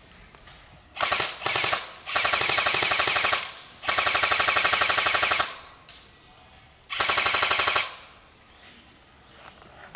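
Airsoft gun firing on full auto in five rapid bursts, the two longest about a second and a half each, with short pauses between them.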